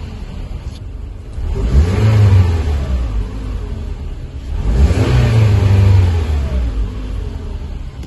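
Car engine revved twice from idle on the accelerator pedal, each rev climbing in pitch and falling back, the first about two seconds in and the second about five seconds in.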